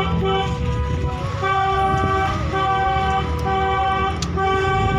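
A vehicle horn sounding in repeated steady-pitched blasts of about half a second to a second each, over the low running noise of a car driving on the road.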